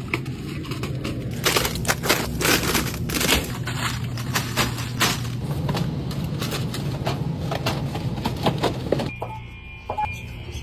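Cardboard boxes of frozen treats being slid and set onto freezer shelves: a run of irregular clacks and knocks over a steady low hum. The clatter dies down near the end.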